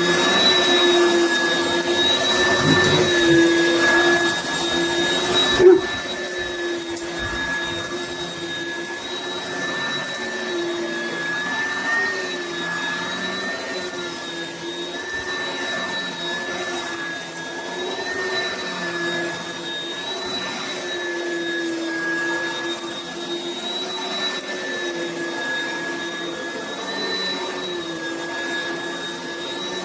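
Oreck Commercial upright vacuum running with a steady, high motor whine over a rushing hiss. It is louder for the first five or six seconds, with a sharp knock near six seconds, then settles to an even hum.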